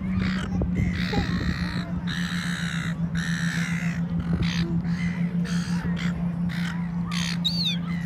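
Crows cawing over and over, a run of harsh caws roughly once or twice a second, some overlapping, over a steady low hum.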